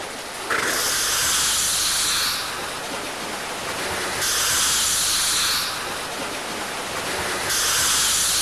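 Steam hissing from a working steam engine in three long rushes, about every three seconds, with a quieter steady hiss between them.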